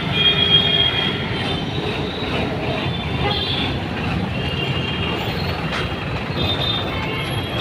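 Diesel engine of a Tata bus running close by, a steady rumble with high squealing tones that come and go.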